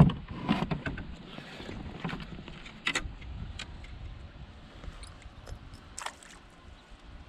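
Scattered knocks and clatters of gear being handled against a plastic fishing kayak's hull. The loudest knock is right at the start, with others about three and six seconds in, dying down toward the end.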